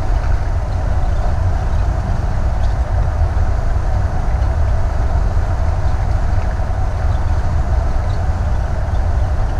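Steady low drone of a Thor Vegas motorhome's engine, tyres and wind at highway speed, heard inside the cab.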